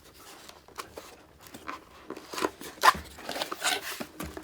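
Cardboard box being opened by hand: flaps and packing scraping and rustling, with scattered clicks that grow louder and busier after about two seconds.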